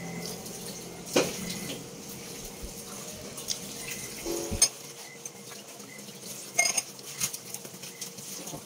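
Dishes, pots and cutlery clinking and knocking together in a kitchen sink as they are washed by hand, with a few sharper knocks, the loudest about halfway through.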